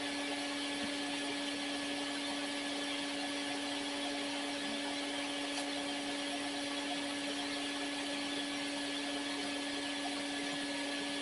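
Low-suction bee vacuum running steadily: a constant motor hum with a high, even hiss of air.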